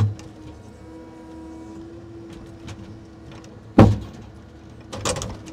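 Timber-truck loader crane's hydraulics holding a steady whine as the grapple takes a heavy wooden crane mat, with one loud wooden knock almost four seconds in and a shorter clatter near the end as the timbers strike. The knock sounds solid, which the operator takes as a sign the mats are not rotten.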